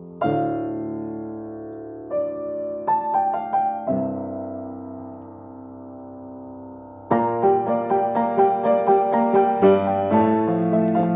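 Grand piano played solo: a loud chord just after the start rings and slowly fades, a few quick notes and another held chord follow, then about seven seconds in a louder passage of fast, evenly repeated notes begins.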